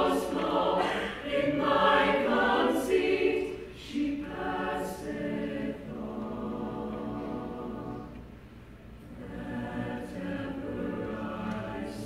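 Mixed-voice chamber choir singing, louder with crisp consonants for the first few seconds, then softer held chords that fade about two-thirds of the way through and swell again.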